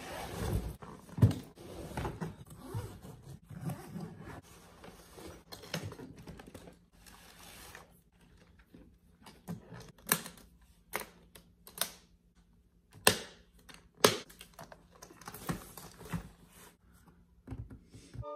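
Irregular clicks, knocks and rustles of luggage being handled: a hard-shell suitcase and a metal-framed barber case being opened, moved and fitted together, with sharper clicks from the case's catches about ten seconds in.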